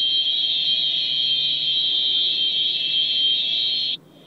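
A loud, steady, high-pitched electronic tone, alarm-like, that cuts off suddenly near the end.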